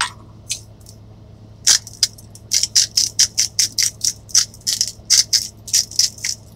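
Hand-twisted salt grinder crushing salt: a quick, regular series of gritty crunches, about three or four a second, starting just under two seconds in, after a couple of single clicks.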